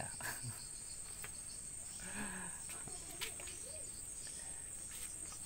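Night insects, crickets, chirring steadily in one high-pitched trill.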